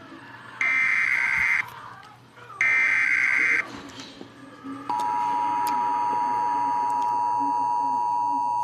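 Emergency Alert System activation: two one-second bursts of SAME header data tones, about a second apart, then about five seconds in the steady two-tone EAS attention signal (853 and 960 Hz) starts and holds. It marks the opening of a new weather warning broadcast.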